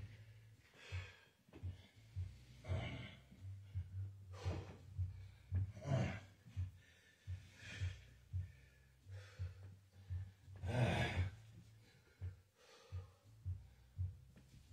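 A man breathing hard during a set of dumbbell reps: short, forceful breaths out repeated about every one to two seconds, with a longer, louder one about eleven seconds in.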